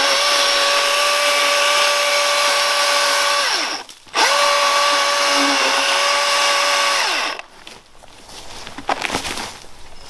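Milwaukee M18 cordless electric chainsaw running at a steady high whine as it rips lengthwise through a log. The motor spins down about three and a half seconds in, starts again at once, then runs on until about seven seconds in and winds down.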